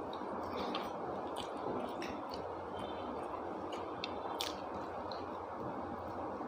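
Close-up chewing and wet mouth sounds of someone eating a curry-and-rice meal, with many small smacks and clicks, over a steady background hiss.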